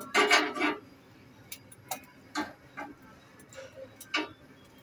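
A broiler chicken foot is singed in metal tongs over a gas burner flame, giving irregular light ticks and crackles. There is a short cluster of sharper clicks at the very start.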